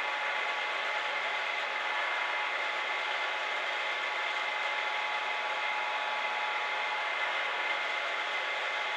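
Drill press running steadily with a constant whine over a hiss, a small bit drilling a cross-pin hole in a cocobolo wood handle scale.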